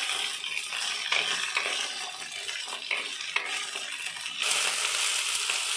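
Cut okra sizzling in hot oil in a nonstick kadai while a flat spatula stirs and turns it, with light scrapes and taps of the spatula on the pan. The sizzle gets louder about four and a half seconds in.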